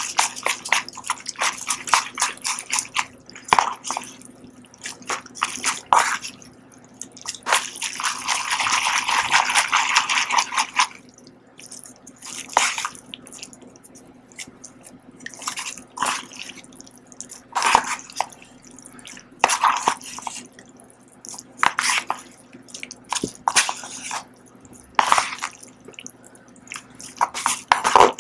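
Person slurping and chewing instant ramen noodles eaten with chopsticks from a cup bowl: a long continuous slurp about eight to eleven seconds in, then separate short wet slurps and chewing sounds every second or two.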